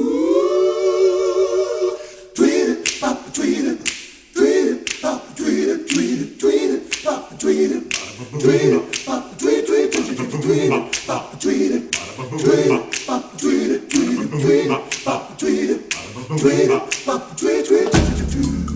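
Background a cappella music: voices singing over a steady beat of sharp clicks, after a rising held note about two seconds long at the start.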